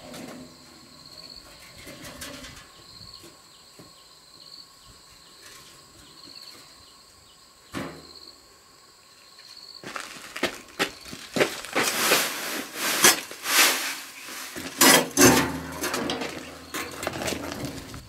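A faint high chirp repeats every second or so over quiet outdoor air. About halfway through, loud rough scraping and pouring noises begin: sand and a sack being handled by hand, with a dull thud among them.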